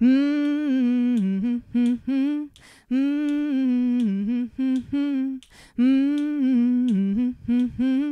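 A woman humming the alto part of a three-part harmony warm-up. She repeats a short phrase three times: a held note that dips lower, then a few short notes.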